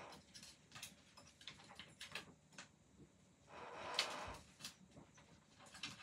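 Faint scattered clicks and scrapes of a cockatoo's beak and claws working against a plastic office chair, with two short rustles, the louder about four seconds in.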